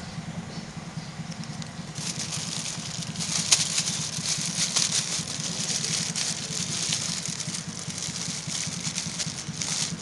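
A steady, low, pulsing engine-like hum, with a dense crackling hiss over it from about two seconds in.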